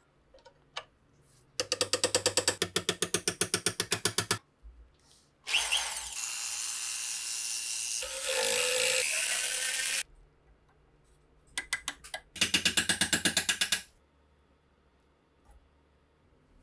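Rust being scrubbed off a steel SVT-40 trigger guard: two spells of rapid scraping strokes, about nine a second, from a small wire brush. Between them a rotary tool grinds steadily against the metal and cuts off suddenly.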